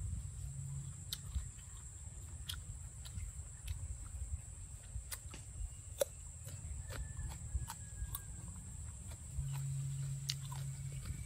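A person chewing crisp slices of green mango: scattered crunches and wet mouth clicks, with a brief low hum near the end.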